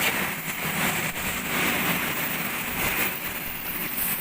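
Steady background noise of a working shipyard workshop, with a few faint knocks.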